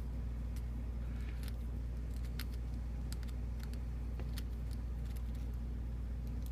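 Light scattered metallic clicks and ticks of small lock parts and tools being handled while a padlock is taken apart, over a steady low hum.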